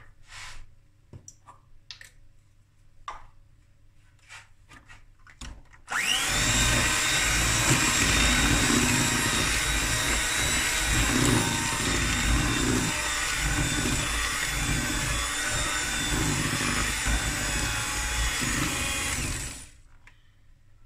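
Electric hand mixer switched on about six seconds in, its beaters running steadily through thick cake batter and fresh flour, then switched off shortly before the end. A few light taps come before it starts.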